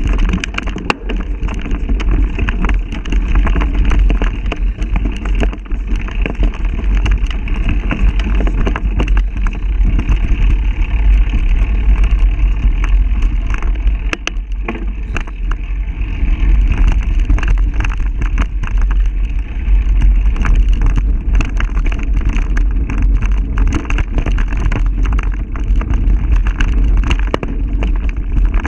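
Bicycle ridden fast along a dirt forest singletrack, heard from a camera mounted on the bike: wind rumbling on the microphone and the continuous rattling and clicking of the bike over the rough trail.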